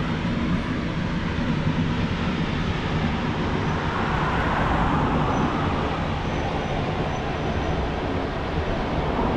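Steady rushing noise of the Steinsdalsfossen waterfall, swelling slightly about halfway through.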